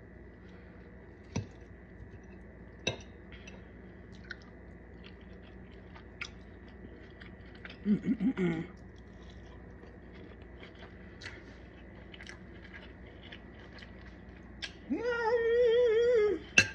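Close-up mouth sounds of a person chewing food, with scattered soft clicks and smacks. There is a brief voiced "mm" about eight seconds in, and near the end a loud sustained vocal note.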